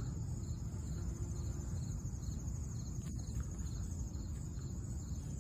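Background insects chirping: a steady high trill with a fainter, even chirp about four times a second, over a low rumble.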